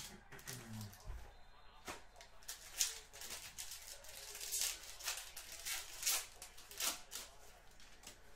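A foil Panini XR football card pack crinkling as it is torn open, then the cards sliding against one another as they are handled. It comes as a string of short, sharp rustles.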